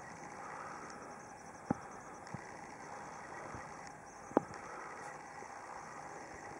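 Quiet outdoor backyard ambience: a steady low background hum, broken by a few brief ticks, the loudest about four seconds in.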